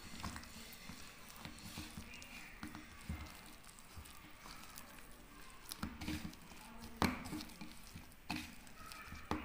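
A hand squishing and kneading soft, loose flour dough in a steel plate, with fingers scraping against the metal. A few sharper clicks and taps come in the second half, the loudest about seven seconds in.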